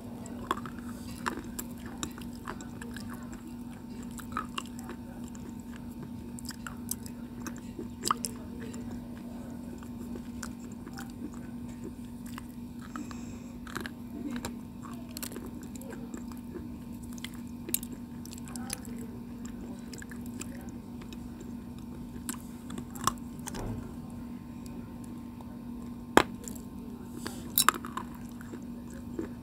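White slate stone being bitten and chewed close to the microphone: irregular sharp crunches, some in quick clusters, over a steady low hum.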